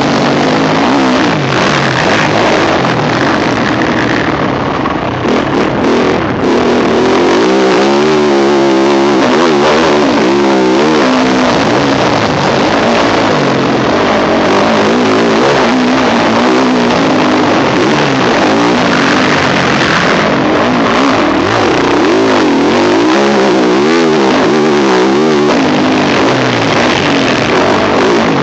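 Yamaha YZ450F four-stroke single-cylinder motocross engine under hard riding, heard close from a helmet camera. It revs up and down repeatedly as the throttle is opened and rolled off.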